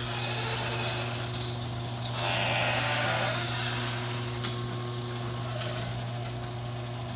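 LiftMaster 1/2 HP garage door opener's motor running steadily with a low hum as it raises the door. A louder rushing noise swells for about a second partway through.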